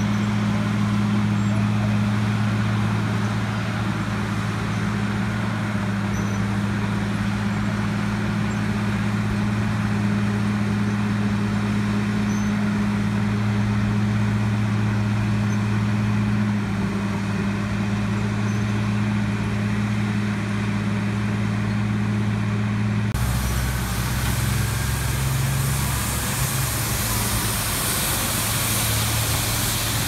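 Heavy diesel road-construction machinery running with a steady low drone. About three-quarters of the way through, the sound changes suddenly to a street sweeper's engine with the hiss of its brushes and vacuum.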